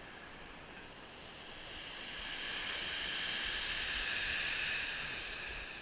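Sea waves breaking and washing up a shingle beach: a hissing rush that swells from about two seconds in and eases off near the end.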